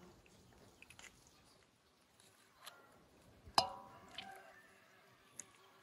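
Wet squishing of raw trout being gutted and cleaned by hand, with a few small clicks. About halfway there is a sharp knock with a brief metallic ring.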